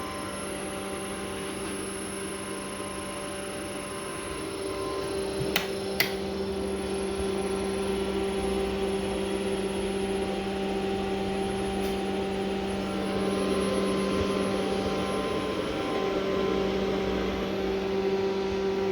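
Electric motor run by a repaired Delta VFD-B industrial inverter, humming and whining steadily and growing a little louder about a third of the way in and again later. Two sharp clicks sound about six seconds in.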